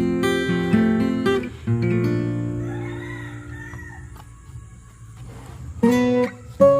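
Background acoustic guitar music. Plucked notes give way to a chord that rings out and fades, and new plucked notes start again near the end.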